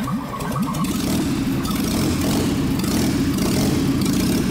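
Lada four-cylinder engine with its oil pan off and the crankshaft's webbing and counterweights cut away, run with no belts, pulleys or accessories fitted. It picks up in the first second and then runs at a steady idle.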